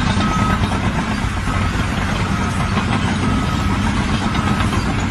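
Heavy vehicle engine running steadily, with a backup alarm giving a short beep about once a second.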